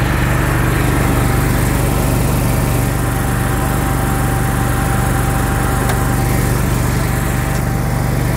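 Service truck's onboard generator and electric air compressor running together: a steady engine hum with a thin whine over it.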